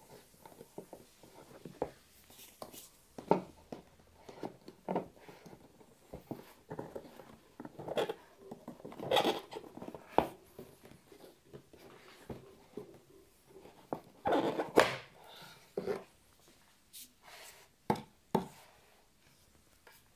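Hands handling a cardboard smartphone box as it is opened: irregular rustling, scraping and soft knocks of the box and its lid, with a few louder scrapes and knocks scattered through.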